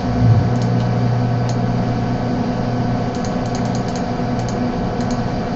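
Steady electrical hum picked up by an over-loud microphone, with a scatter of faint computer mouse clicks, several in quick succession about three to five seconds in.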